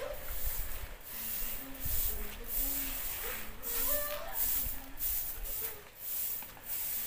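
Dry paddy being scooped by hand across a hard earth floor into a bamboo winnowing basket: repeated hissing rustles of grain, one stroke after another.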